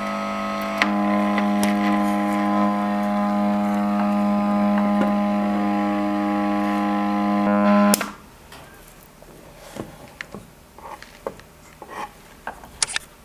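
Digital TS-60 amplifier putting out a steady, distorted buzz through its speaker with no input: the fault under repair, still present with the USB, antenna and microphone leads unplugged. The buzz cuts off suddenly about eight seconds in, and a few light handling clicks follow.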